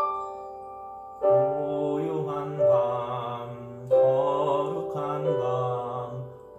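Christmas hymn medley music: sustained chords over a low bass line, with a wavering melody on top, new chords coming in about a second in and again near four seconds.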